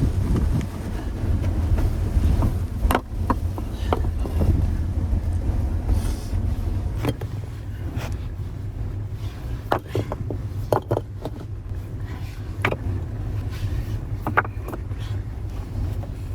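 Blizzard wind buffeting the microphone as a steady low rumble, with scattered sharp clicks and knocks, more of them in the second half.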